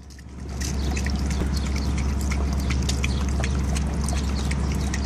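Boxer dog lapping water from a plastic bag in quick, wet, irregular laps, starting about half a second in. The laps sound over water poured from a plastic bottle and a steady low hum.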